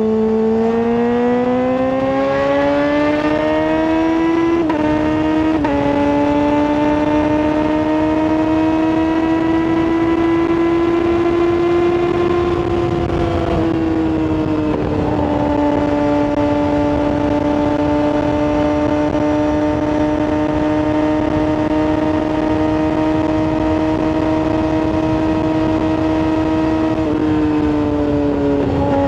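Yamaha R6 sport bike's inline-four engine, tuned and running through a full exhaust at high revs. Its pitch climbs over the first few seconds, holds high with brief small dips, eases down a little about halfway through, and then holds steady.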